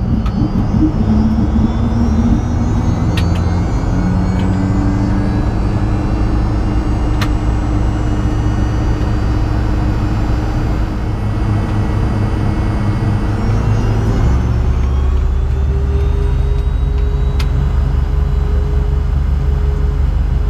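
Fokker 100's rear-mounted Rolls-Royce Tay turbofans heard from inside the cabin, running with a steady drone and whine. About fourteen seconds in, a tone slowly rises and the low rumble grows as the engines spool up and the jet starts to taxi.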